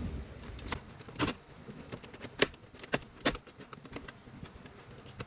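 Hard plastic centre-console trim of a Corvette being worked loose and handled: a string of separate sharp clicks and knocks, the loudest in the middle.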